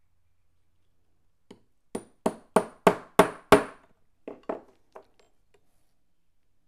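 Small hammer tapping a tapered steel pin into the hub of a brass phonograph gear on its steel shaft, set in a V-block. There is one light tap, then six sharp metallic strikes about three a second, each with a short ring, then four lighter taps as the pin seats solid.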